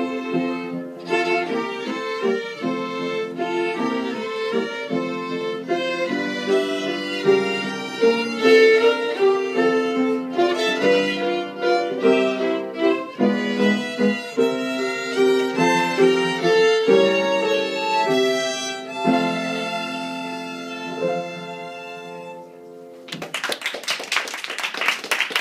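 A small ensemble of violins, young students playing with their teacher, finishes a slow tune, the notes thinning out and fading over the last few seconds of playing. About 23 seconds in the music stops and applause starts.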